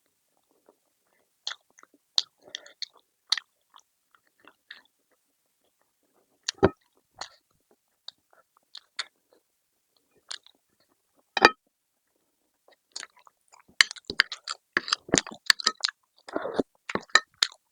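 Close-miked eating sounds: chewing and biting food with wet mouth clicks and smacks, sparse at first with a couple of sharper, louder bites, then rapid and almost continuous from about two-thirds of the way in.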